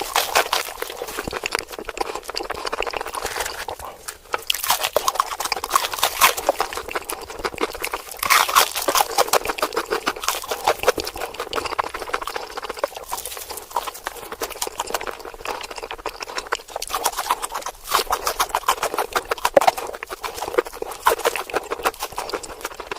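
Close-miked crunching and chewing of crispy fried chicken, played back sped up, so the bites and chews run together into a rapid stream of crackling clicks.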